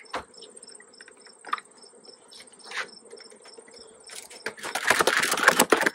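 Ratchet strap being worked tight around a foam-wrapped beehive: a few scattered clicks, then a run of rapid ratchet clicks from about four and a half seconds in. Crickets trill steadily in the background.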